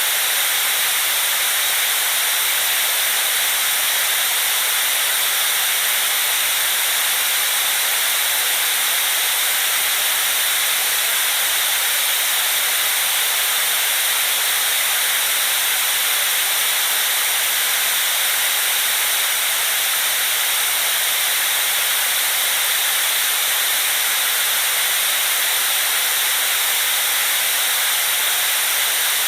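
Steady white noise: an even, unchanging hiss with most of its strength in the upper range and little bass.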